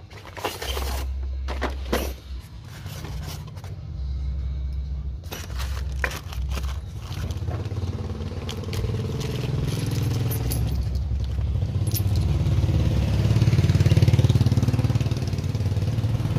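Cardboard box and plastic packaging handled by hand, with sharp crinkles and clicks in the first several seconds, as a mirror kit and a bag of bolts are lifted out. Under it runs a low vehicle-engine hum that swells louder in the last few seconds.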